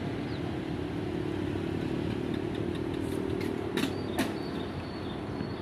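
A motor vehicle engine droning steadily, with a few sharp clicks about three to four seconds in.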